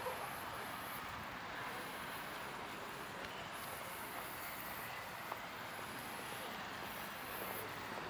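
Steady city street background noise, an even rumble and hiss, with one small click about five seconds in.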